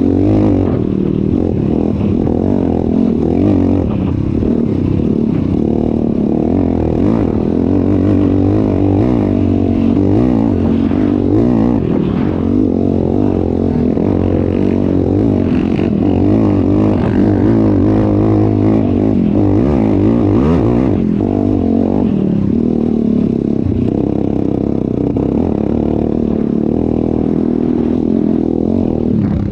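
ATV engine running under way, its pitch rising and falling with the throttle, with rattling and scraping from the ride.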